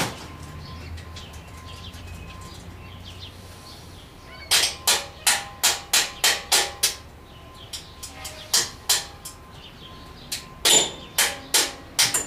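Hammer tapping on metal: three quick runs of sharp strikes, about three a second, the first starting about four and a half seconds in.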